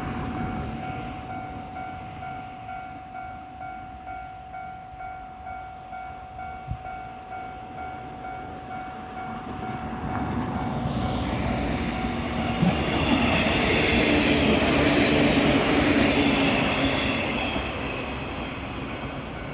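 Japanese level-crossing warning bell ringing in an even, repeating pulse. About ten seconds in, a JR West 115-series electric train comes through on the curve, its wheels running over the rails with a high squeal. The train is loudest a few seconds later and fades near the end.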